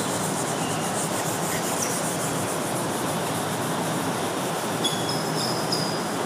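Steady background hiss, with a few short faint squeaks about five seconds in, typical of a marker on a whiteboard.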